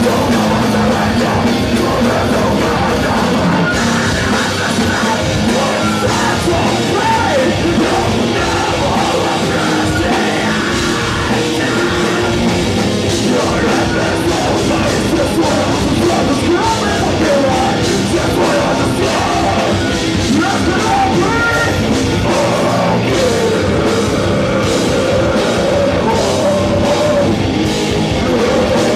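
Metalcore band playing live, loud and continuous, with drums and vocals.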